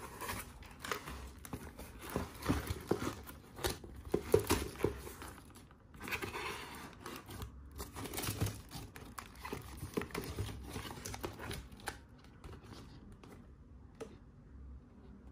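Cardboard shipping box and packing tape being torn open by hand: irregular tearing, crinkling and rustling with sharp crackles, dying down near the end.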